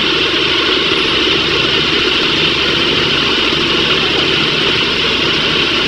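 Heavy truck engine running steadily at a constant pitch.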